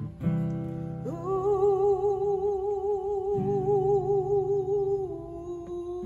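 A woman sings one long held note with vibrato over an acoustic guitar. She slides up into the note about a second in and steps down slightly near the end. Guitar chords sound at the start and again about midway.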